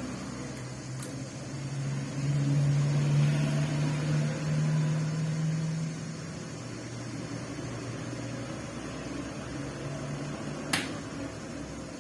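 Electric stand fan running with a steady motor hum, louder for about four seconds after the start, with a single sharp click near the end.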